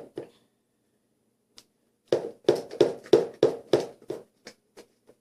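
A run of about a dozen quick taps, roughly three a second, starting about two seconds in and fading toward the end: a utensil jabbing holes into slime in a bowl.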